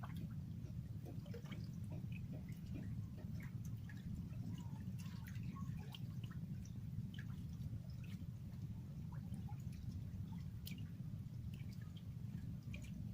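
Small scattered water drips and plinks over a steady low rumble.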